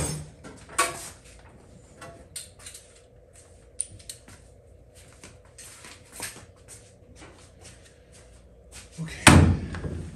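Scattered light clicks and taps of metal parts being handled as a power brake booster and master cylinder are held and positioned on the car's firewall, with one louder knock about nine seconds in.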